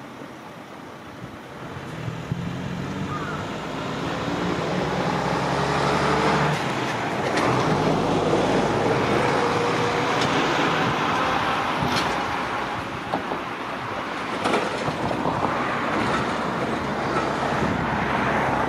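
Road traffic passing: the engine and tyre noise of a vehicle builds over a few seconds and stays loud, with a few short sharp clicks over it later.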